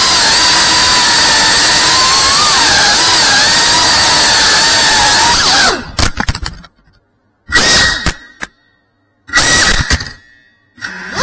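Small FPV quadcopter's brushless motors and propellers whining steadily, the pitch wavering as the throttle changes. About six seconds in the sound cuts off, then comes back in two short bursts before the steady whine resumes near the end.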